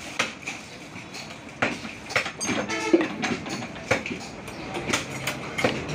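Irregular sharp knocks and clicks from butchering beef on a wooden chopping block, the knife blade striking the block, about six or seven times over a few seconds, with a short ringing clink near the middle and steady market noise behind.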